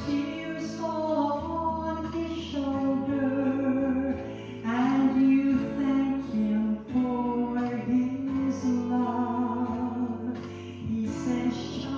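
A woman singing with instrumental accompaniment: long held notes over steady bass notes.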